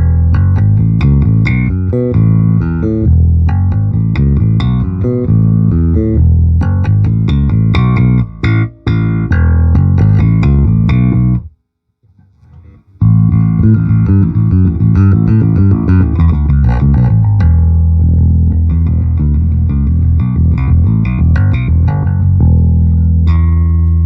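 Electric bass guitar played through a Peavey VB-2 all-tube bass amp head: a steady run of plucked notes, stopping briefly about halfway through before the playing resumes. Near the end a low note is held and left to ring.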